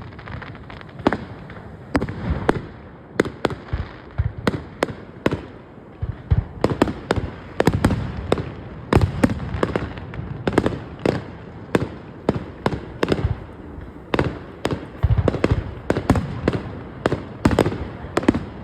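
Fireworks display: aerial shells bursting in an irregular stream of sharp bangs, several a second at times, with low rumbling booms between them.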